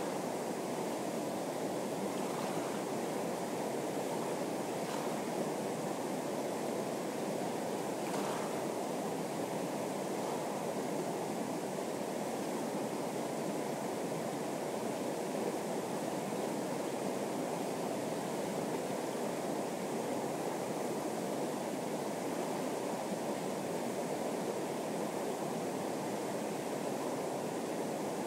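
Fast-flowing river rapids rushing steadily, a constant wash of moving water.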